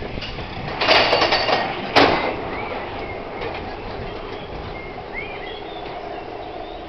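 Expedition Everest roller coaster train rolling on its track as it starts up the lift hill. There is a burst of clattering about a second in and a single sharp clank a second later, then a steady rumble with a low hum.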